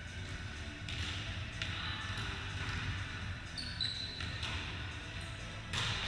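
Volleyball being struck and bouncing on a wooden sports-hall floor: a few sharp smacks and thuds that echo in the large hall, the loudest near the end, with a short high squeak a little past the middle.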